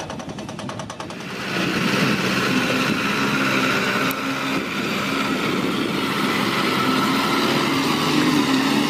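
A truck engine running steadily, after a quick, even rattling for about the first second.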